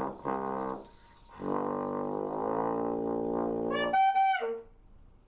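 A low, brass-like wind instrument plays long held notes, the second lasting about two and a half seconds, followed by a brief high piping note that drops in pitch as it ends.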